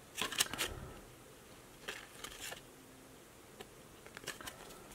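Hockey trading cards being thumbed through by hand, each card slid and flicked off the front of the stack: faint papery clicks and rustles in a few short clusters.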